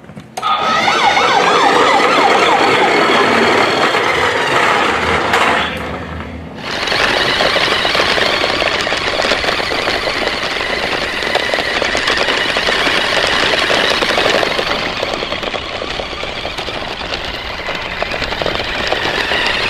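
A wavering, siren-like tone for about the first six seconds, cutting off suddenly, then a steady rattling whir from a toy RC car's electric motor and gears.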